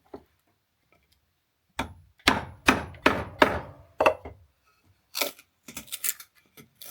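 A series of about six hard blows on wood, roughly two a second, each with a short ring, followed by lighter, sharper taps and clicks near the end.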